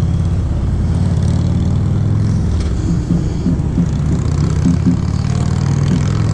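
A motor vehicle's engine running with a steady low drone, amid passing road traffic.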